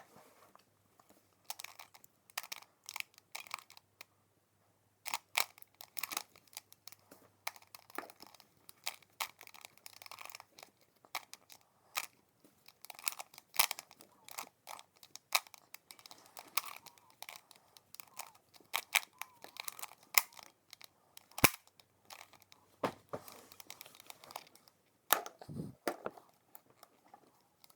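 A 3x3 Rubik's Cube being turned by hand, its plastic layers giving off a long, irregular run of clicks and clacks with short pauses between bursts of turns.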